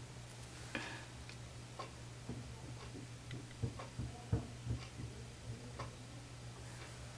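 Faint clicks about every half second over a steady low hum, with a few louder soft knocks about four to five seconds in.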